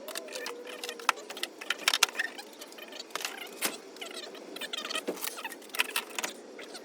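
Scattered light clicks, taps and rattles of small hard objects being handled, irregular throughout, with a short gliding squeak-like tone at the very start.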